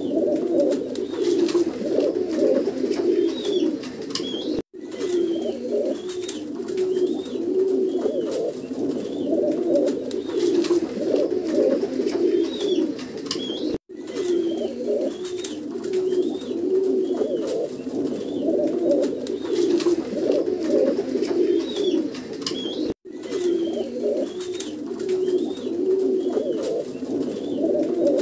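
Domestic pigeons cooing continuously in repeated low, rolling coos, with faint high chirps behind. The sound cuts out for an instant three times, about nine seconds apart.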